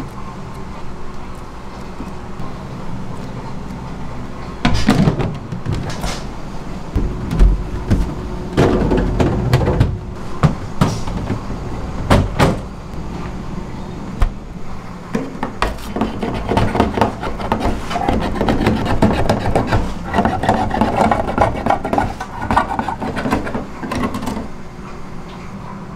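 Commercial kitchen work sounds: a steady hum of kitchen equipment under sharp knocks and clatter from handling dough tubs and opening a fridge. In the second half there is a stretch of dense rapid clicking and rattling.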